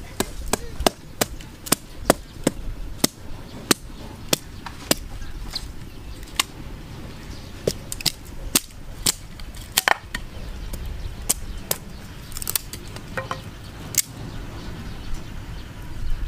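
A small hatchet chops into a wooden stick with a run of sharp knocks. They come about three a second at first, then slow to one or two a second and become less regular.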